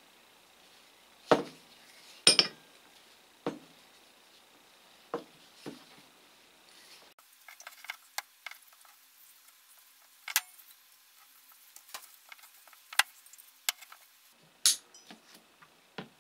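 Steel piano wire being wound into a coil spring around a screwdriver shaft clamped in locking pliers: irregular sharp metallic clicks and clinks as wire and tools knock together, the loudest two within the first few seconds.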